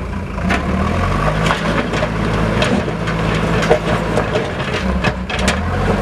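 Backhoe loader's diesel engine running under load as its front bucket pushes soil and stones, with scattered sharp cracks and crunches of rock and wood under the bucket.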